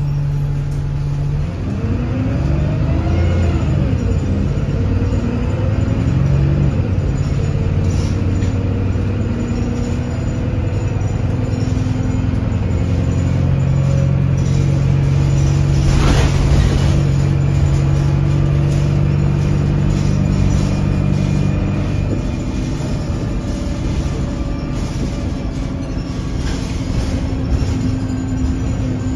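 Alexander Dennis Enviro200 Dart bus with its Voith automatic gearbox, heard from inside the saloon: the engine and drivetrain run under way, their pitch rising and falling in the first few seconds and then holding steady. A short burst of noise about sixteen seconds in.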